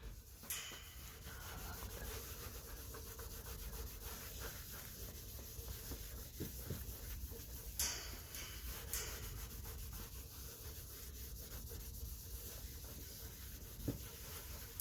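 Headlight restorer being rubbed by hand into a hazy plastic headlight lens: a faint, steady scrubbing, with a couple of sharper ticks about two-thirds of the way through.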